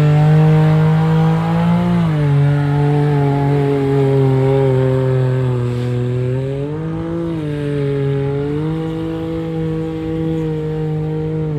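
Side-by-side UTV engine held at high revs under load on a mud course. The pitch drops a little about two seconds in, climbs again around seven and nine seconds, and falls away near the end.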